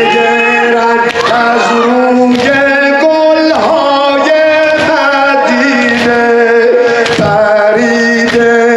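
Men's voices chanting a Persian noha (Shia mourning lament) in long, drawn-out held notes, with sineh-zani chest-beating strikes about once a second.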